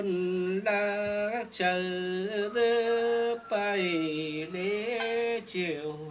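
A woman singing a Nùng call-and-response folk song (hát đối đáp) unaccompanied, in long held notes that bend slowly in pitch, broken by short breaths about every second.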